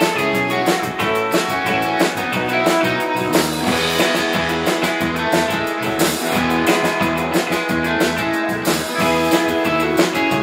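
Live rautalanka instrumental: a lead electric guitar plays the melody over electric bass and a drum kit keeping a steady beat.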